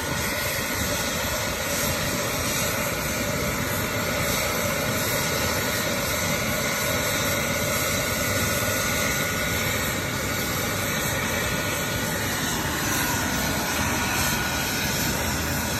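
AgustaWestland AW139 helicopter running on the ground, its twin turboshaft engines and turning rotors giving a steady high whine over a constant broad noise.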